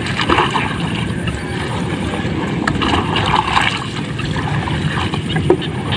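Shallow paddy water sloshing and splashing as a person wades and scoops in it with a plastic bowl, with a few small knocks.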